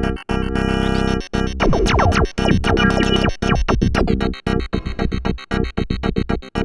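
ASM Hydrasynth digital wave-morphing synthesizer playing a factory preset, heard straight from its output. It plays a rhythmic pattern of chopped chords, with a cluster of quick falling pitch sweeps in the middle. Near the end it moves to faster, shorter pulses.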